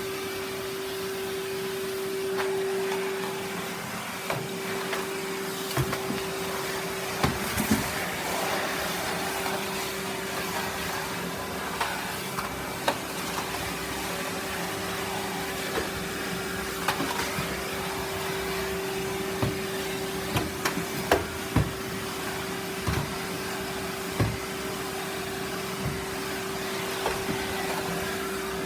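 Numatic Henry cylinder vacuum cleaner running with a steady hum, with scattered sharp clicks and knocks as it picks up debris from a dirty floor.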